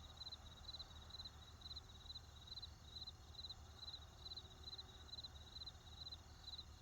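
Crickets chirping in a steady rhythm, about two short pulsed chirps a second, over a faint low rumble of distant traffic.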